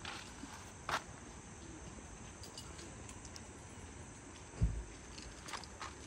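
Camping gear being handled: a few sharp clicks and knocks, and one dull thump about four and a half seconds in, over faint steady insect chirping.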